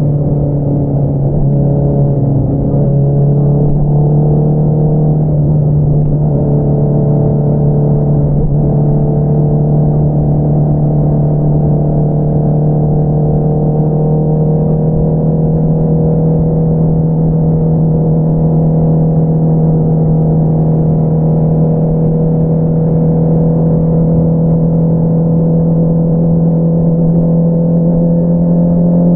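2022 Honda CBR650R's inline-four engine through an Akrapovič single-outlet exhaust, running steadily on the move. Its pitch shifts a little in the first few seconds, then climbs slowly and evenly as the revs build.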